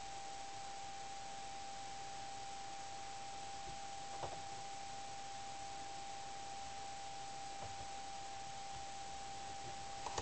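A steady high single tone over a constant hiss, with a faint click about four seconds in.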